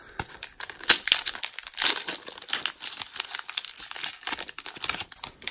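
Foil wrapper of a Pokémon booster pack crinkling as hands handle it and tear it open: a dense run of irregular crackles, the sharpest about a second in.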